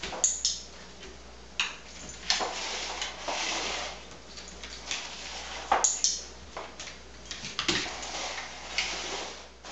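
Cardboard egg cartons knocking and scraping on a vinyl floor as they are nosed by a dog and picked up and set down again. Irregular light taps come with rustling scrapes between them.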